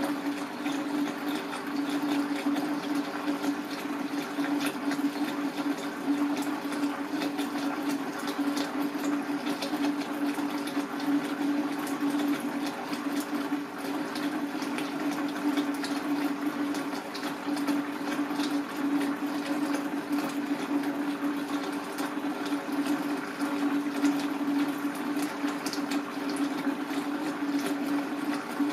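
Steady rush of water with a constant low hum and fine crackling.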